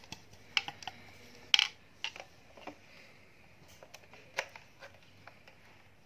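Plastic parts of a handheld vacuum cleaner, its dust cup and cone filter, being handled and taken apart: scattered clicks and knocks, the loudest about a second and a half in.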